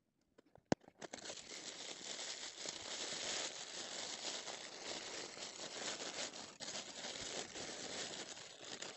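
Thin printed tissue-paper wrapper crinkling and rustling as it is unfolded by hand from around a small toy, continuous from about a second in, after a single short click.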